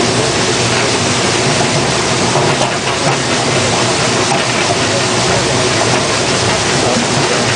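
Potato washing and peeling machine running, a loud, steady rush of spraying water over machine noise.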